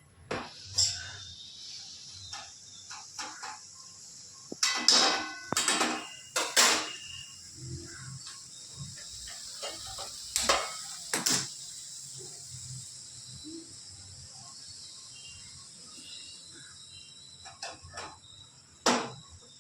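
Dishes and kitchen utensils knocking and clinking now and then, with a cluster of strikes partway through, some ringing briefly. Under them runs a steady high chirring of crickets.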